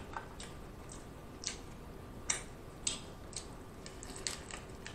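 Close-miked eating sounds: about half a dozen sharp, scattered clicks and small crackles as meat is pulled from a king crab leg shell and bitten.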